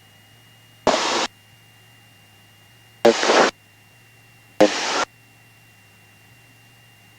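Three short bursts of radio static over the aircraft headset intercom, each about half a second long and starting with a click, about a second, three seconds and four and a half seconds in. Between them a faint steady low hum.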